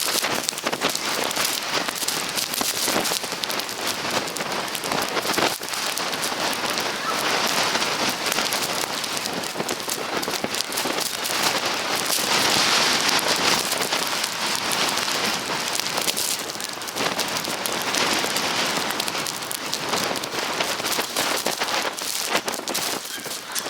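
Blizzard wind blowing hard with wind-driven snow: a dense hiss full of small ticks, swelling in a stronger gust about halfway through.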